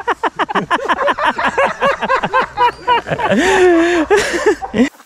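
Loud, fast laughter, a quick run of high 'ha-ha-ha' pulses, rising into a long drawn-out wavering laugh near the end before it cuts off abruptly.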